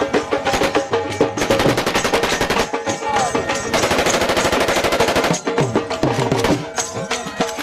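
Automatic gunfire in two long bursts of rapid shots, the second starting about a second after the first ends, over folk music with percussion.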